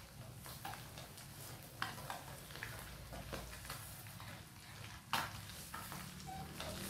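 Boiled quail eggs frying in a pan with a soft sizzle while being stirred, the utensil knocking against the pan now and then, loudest about two seconds in and again near five seconds.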